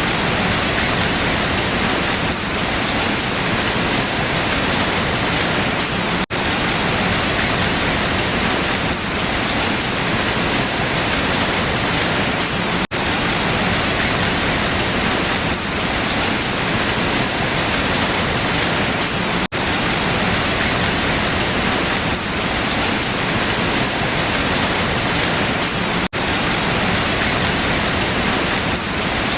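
Steady rain falling on leaves, an even hiss, broken by a very short dip in level about every six and a half seconds.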